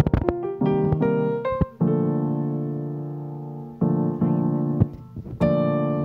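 Background piano music: slow chords struck and left to ring and fade, a new chord every second or two.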